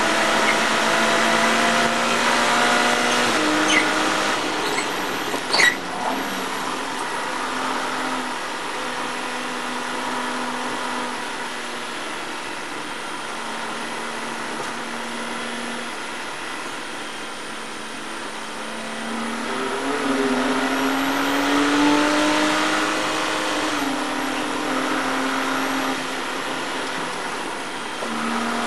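Porsche Cayman race car's flat-six engine heard from inside the cockpit, running hard at high revs. Its pitch holds steady through a slower stretch, then climbs about twenty seconds in before a gearshift drops it again. A sharp click sounds about six seconds in.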